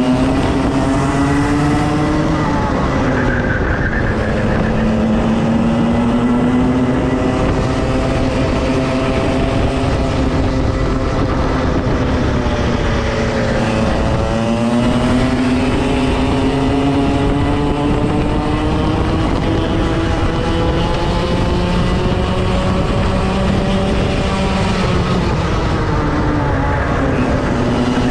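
Racing kart engine at full throttle, its pitch climbing steadily along the straights and dropping sharply three times as it slows for corners, about three seconds in, around fourteen seconds and near the end.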